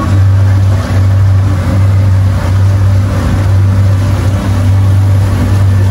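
Engine of an abra water taxi running steadily under way: a loud, even low drone with a steady rushing noise above it.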